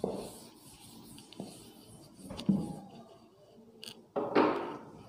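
Chalkboard duster wiping across a chalkboard in several separate rubbing strokes, erasing it, with a louder stroke a little after four seconds.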